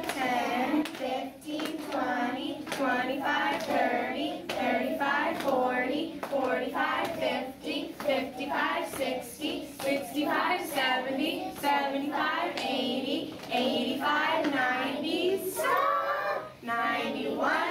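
A class of young children and their teacher chanting in unison, counting by fives up to 90, then 91, 92, while patting their knees in time with each number.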